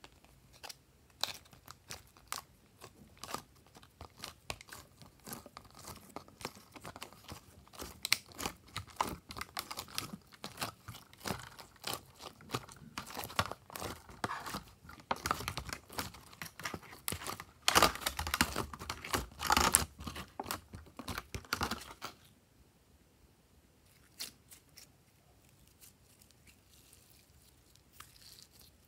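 Glossy slime pulled out of a clear plastic compartment tray and squished and stretched by hand: a busy stream of sticky crackles and little pops. The sound builds to its loudest about two-thirds of the way through, then stops abruptly, leaving a few faint clicks.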